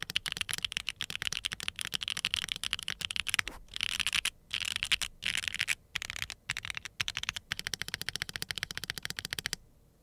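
Steady fast typing on a QWERTYKEYS QK100 mechanical keyboard built with WS Black switches on a carbon fiber plate, non-flex PCB and no foam: a dense run of clacky keystrokes. It breaks off in a few short pauses and stops shortly before the end.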